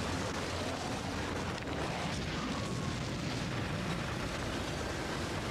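Tornado wind rushing without a break: a heavy, steady noise, strongest in the low end.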